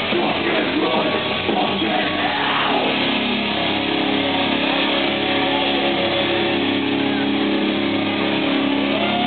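Live rock band playing loud: distorted electric guitar, drums and shouted vocals, then about three seconds in the music settles into steady held notes ringing on.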